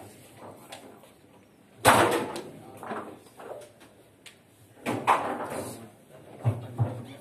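Hard knocks and slams of foosball play, the ball and rods striking the table, ringing on in a hall. Two loud slams come about three seconds apart, with a few smaller thuds near the end.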